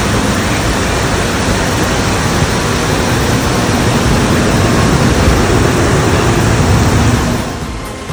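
Loud, steady rushing noise with no clear tone, which fades away near the end.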